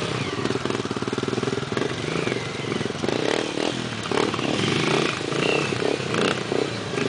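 Dirt bike engines running and being revved, the engine pitch rising and falling repeatedly.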